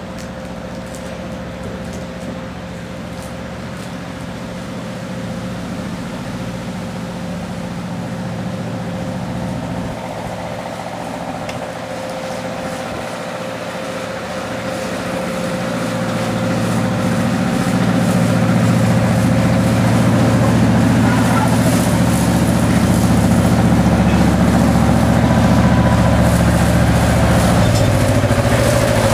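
Walrus, a narrow-gauge locomotive, running with a steady engine note that grows louder from about halfway through and then holds.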